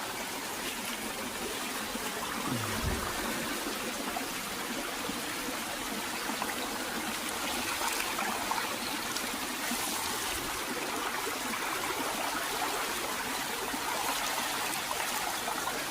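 Running water of a small stream, trickling steadily.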